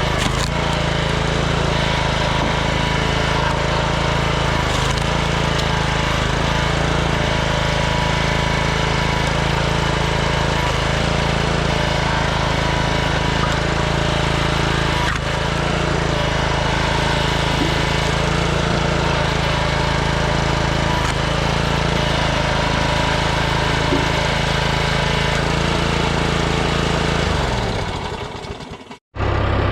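An engine running steadily, then shut off near the end, its pitch dropping as it winds down to silence.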